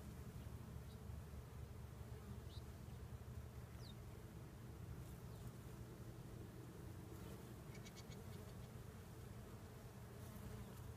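Faint, steady buzzing of bees foraging on sunflowers.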